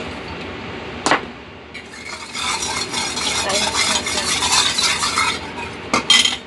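A metal spoon stirring and scraping seasonings in a small stainless steel bowl for about three seconds, ending in two ringing clinks of spoon against bowl. A single sharp click comes about a second in, before the stirring.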